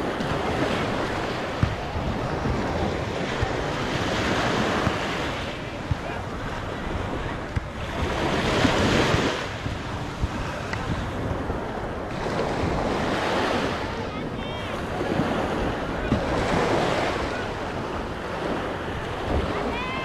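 Small waves breaking and washing up a sandy beach, the surf swelling about every four seconds, with wind rumbling on the microphone.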